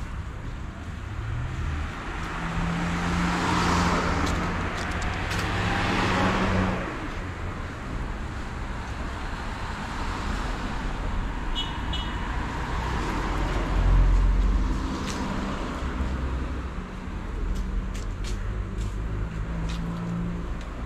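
Street traffic: a car engine running close by, with a car passing about four to six seconds in and a louder low rumble about fourteen seconds in.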